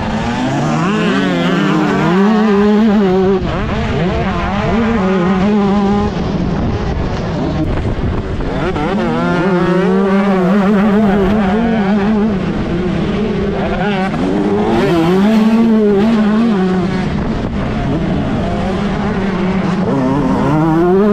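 125cc two-stroke motocross bike engine under hard acceleration. Its pitch climbs and drops back again and again as the rider shifts up and rolls off, with steadier running between the runs.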